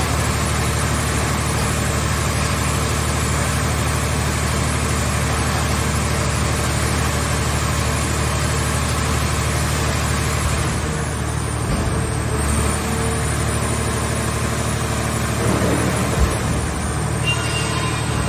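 Scrap car shell baler's engine and hydraulics running steadily, with a couple of brief knocks partway through.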